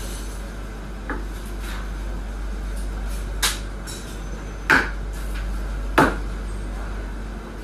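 Four sharp knocks of a chef's knife and meat against a plastic cutting board on a steel counter, spaced a second or so apart, the last two loudest. A steady low hum runs underneath.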